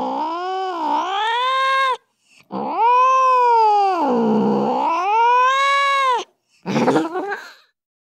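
Cat yowling: a long, wavering call that ends about two seconds in, then a second long call that sinks and rises in pitch, then a short rough call near the end.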